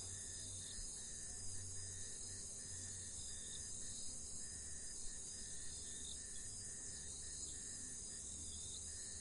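Faint chorus of crickets and other insects: a steady high-pitched hiss with a regular pulsing chirp repeating throughout.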